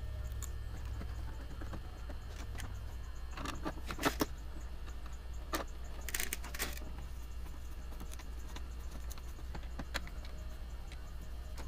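Scattered light clicks and rattles of a replacement door handle and its screws being handled and fitted to a pickup's rear door, with a quick cluster of clicks about three and a half seconds in and a short scraping burst around six seconds.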